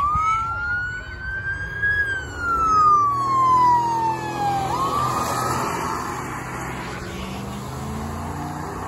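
Emergency vehicle siren wailing in long slow cycles: the pitch rises, falls, then climbs again about five seconds in before fading out. Responding vehicles pass with a low engine rumble beneath it.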